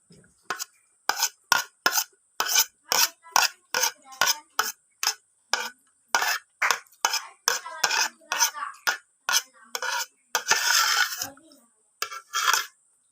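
Cutlery scraping and clinking against a plate while rice is scooped up, in quick short strokes two to three a second, with one longer scrape about ten seconds in.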